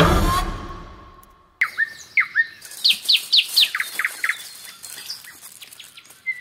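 Birds chirping: a quick series of short, sharply down-slurred whistled notes, several a second, starting about a second and a half in after a fading note dies away.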